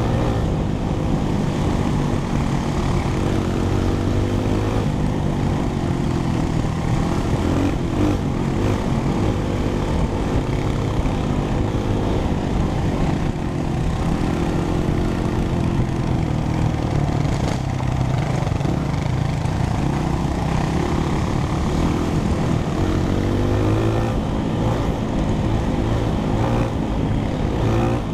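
Honda CRF100F dirt bike's single-cylinder four-stroke engine running under way on a gravel trail, its pitch rising and falling several times with the throttle.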